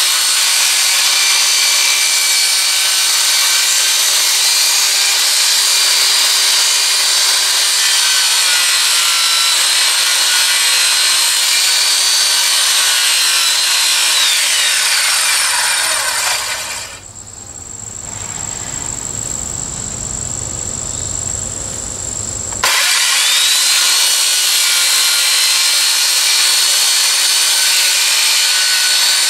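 Circular saw ripping a 2x4 lengthwise, its motor whining steadily under load. About halfway through the whine slides down in pitch and the saw winds down, leaving a quieter pause of about six seconds. Then the saw spins back up and cuts on.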